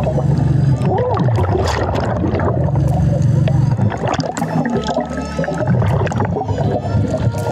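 Underwater sound heard by a diver's camera: a steady low drone, with bubbling and scattered clicks over it. The drone briefly drops out about five seconds in.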